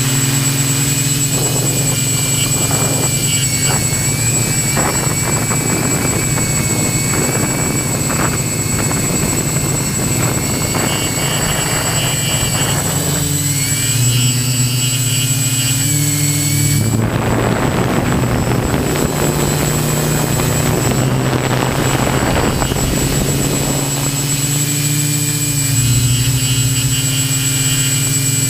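Quadcopter's electric motors and propellers buzzing steadily, heard close through the onboard camera, their pitch stepping up and down as the throttle changes. A rushing noise swells over them for several seconds about two-thirds of the way through.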